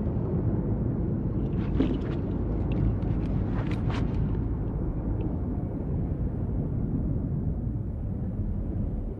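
Muffled underwater battle sound from a film soundtrack: a steady low rumble with the high end cut off. Between about one and a half and four and a half seconds in come a few faint sharp zips, as bullets tear through the water.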